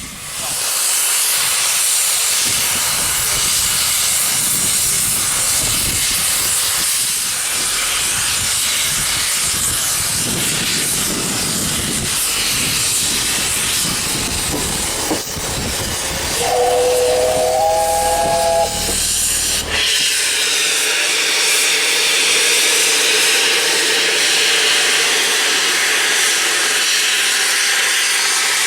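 Peppercorn A1 steam locomotive Tornado hissing steam loudly and steadily, with a rumble underneath for the first two-thirds. Just past halfway, its steam whistle sounds once as a three-note chord for about two seconds, stepping slightly up in pitch partway through.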